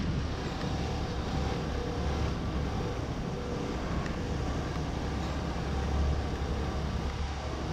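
Diesel engine of a Botchan Ressha replica steam locomotive running steadily as the locomotive creeps forward: a low, even hum.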